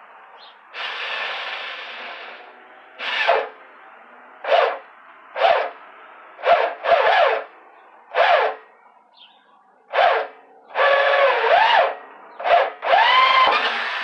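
Drill driving a 1¼-inch hole saw into a barrel wall, run in about a dozen short bursts on the trigger as the cut goes in. The motor whine rises and falls with each squeeze, and the last burst runs on longer.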